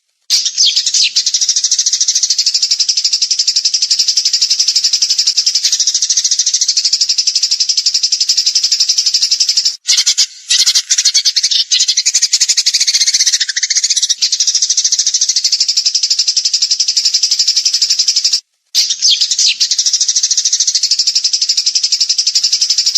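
Small songbird singing a continuous, very rapid high-pitched trill of repeated notes, the fast 'tembakan' (rapid-fire) song used for training other birds. The song breaks off twice for a moment, near the middle and about three quarters through.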